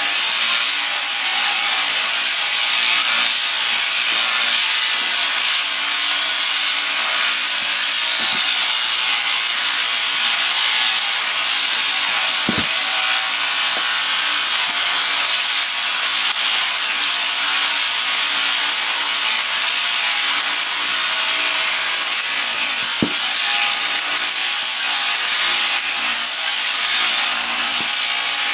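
Overhead-drive sheep shearing handpiece running steadily as its comb and cutter clip through a ram's fleece. Two short knocks come through, about twelve and twenty-three seconds in.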